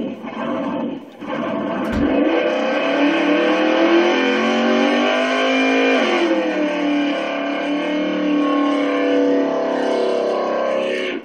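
1967 Chevrolet Camaro's engine held at high revs during a burnout, its pitch climbing slowly, then dropping and settling about six seconds in. A low thump sounds about two seconds in.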